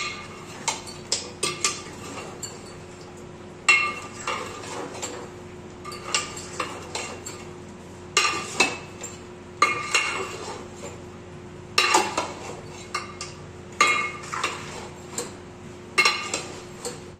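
Long-handled metal spatula scraping and clinking against the inside of a large aluminium pot as pieces of meat curry are stirred, in bursts about every two seconds. A faint steady hum runs underneath.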